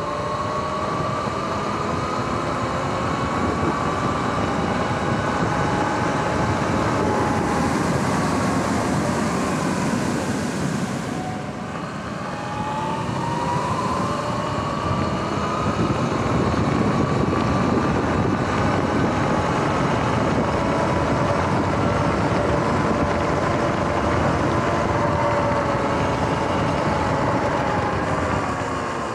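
Electric dirt bike's motor whining under a steady rush of wind and tyre noise, the whine climbing in pitch as the bike gathers speed. About halfway through, the whine drops and the noise eases as the bike slows, then the whine climbs again as it pulls away.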